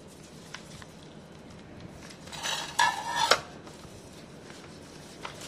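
Aluminium foil crinkling and crackling as a food wrap is torn open by hand, with a louder burst of crackling about halfway through.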